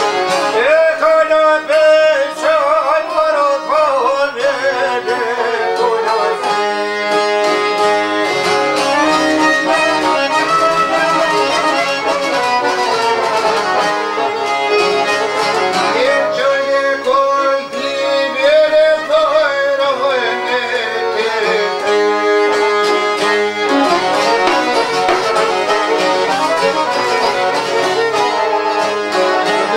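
Albanian folk song played by a band, its melody running in wavering, ornamented lines without a break.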